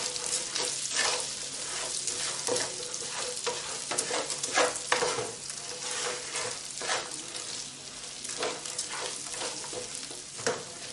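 Onions, carrots and garlic frying in olive oil in a pan, with a steady sizzle. A spoon stirs them, scraping and knocking against the pan many times at an uneven pace.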